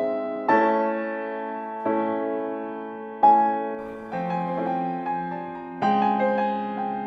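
Background piano music: soft chords struck every one to two seconds, each ringing and fading before the next.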